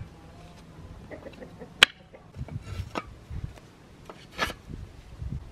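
Wooden sticks being set down on a rusty metal rack: several sharp knocks of wood on metal and wood, with light scraping between them. The loudest knock comes a little under two seconds in.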